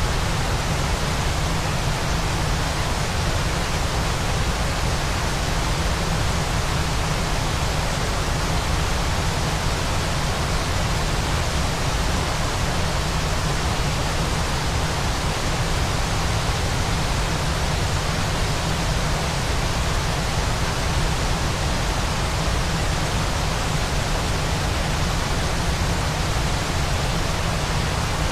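Waterfall giving a steady, unchanging rushing noise with a strong low rumble.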